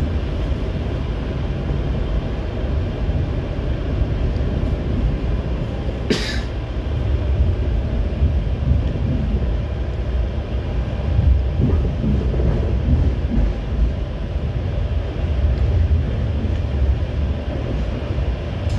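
Taipei Metro C321 steel-wheel train running, heard from inside the passenger car: a steady low rumble of wheels on rails, with a brief sharp hiss about six seconds in.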